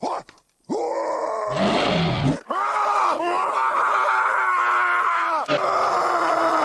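A man's wordless caveman vocal effects: a run of groaning yells after a short pause near the start, the longest held for about three seconds.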